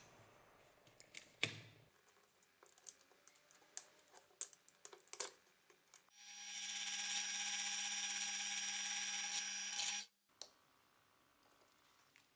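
Light clicks and taps of hand work for the first several seconds. Then a small machine hums steadily for about four seconds, starting and cutting off abruptly.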